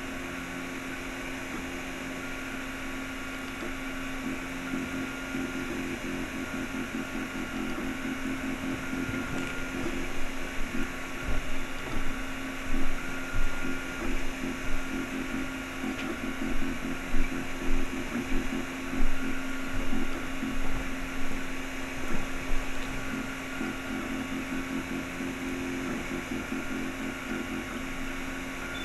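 Anet A8 3D printer printing: its stepper motors whine in shifting tones as the print head moves, over the steady whir of the extruder cooling fan. From about a third of the way in to about three quarters, the motor sound comes in louder, choppier pulses.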